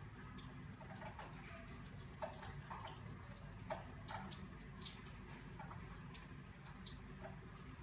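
Faint, irregular little clicks and soft rustles of a crochet hook working yarn, stitch after stitch, over a low steady hum.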